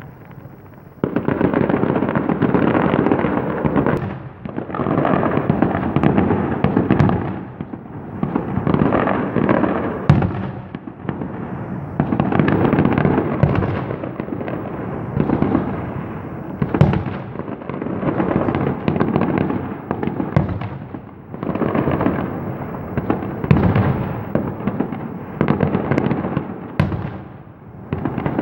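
Fireworks going off in a long barrage: dense crackling volleys of a few seconds each, separated by short lulls, with the odd sharper bang standing out. The barrage starts about a second in.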